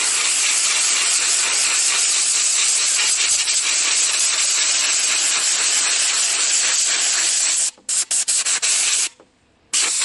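Compressed-air blow gun sending a steady, loud hiss of air through a truck's nearly clogged cabin air filter to blow the dust out. Near the end the air is cut in several quick on-off bursts, then stops for about half a second before blasting again.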